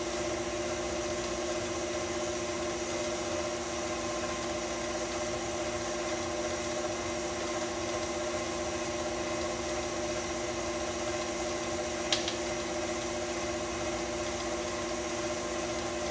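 Electric tilt-head stand mixer running at a steady speed, its motor humming evenly as it beats cake batter. A single sharp click about three-quarters of the way through.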